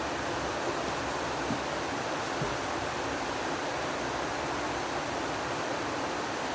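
Steady hiss at an even level, with a few faint light clicks in the first few seconds.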